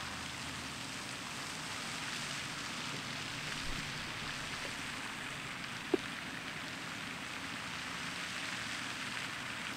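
Steady splashing hiss of a pond's spray fountain. A faint dull thump about three and a half seconds in as a sand wedge blasts the ball out of a bunker, and a short sharp tap about six seconds in.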